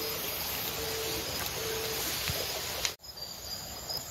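Insects chirring steadily over an outdoor hiss, with a short low note repeating about once a second. The sound briefly drops out about three seconds in.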